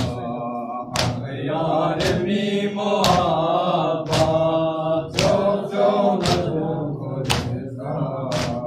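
Male voices chanting a Balti noha (Shia lament) in unison, with sharp chest-beating slaps of matam keeping time about once a second.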